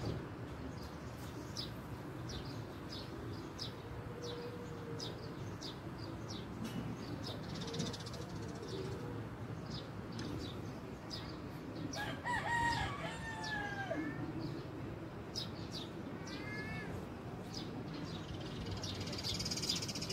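A rooster crows once, about twelve seconds in, a drawn-out call that falls in pitch at the end. Throughout, small birds give short, high chirps every second or so over a steady low background hum.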